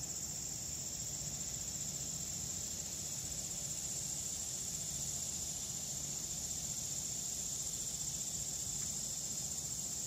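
Cicadas in the distance buzzing in a steady, high-pitched chorus.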